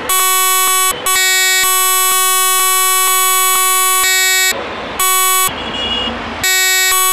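Locomotive air horn sounding a sequence of blasts: a short one, a long one held for about three and a half seconds, another short one, then a fourth starting near the end. Each blast is loud and steady, several tones together, starting and stopping cleanly.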